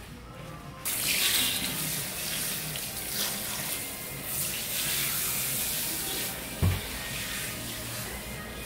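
Salon shampoo-basin hand sprayer running water over hair being rinsed, a steady spraying hiss that starts abruptly about a second in. A short low thump comes near the end.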